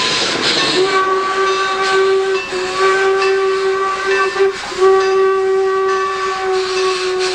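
Steam locomotive whistle on Norfolk & Western 4-8-0 No. 475 blowing loud, steady chord-like blasts. The blasts are broken briefly twice. Steam hisses at the start before the whistle comes in.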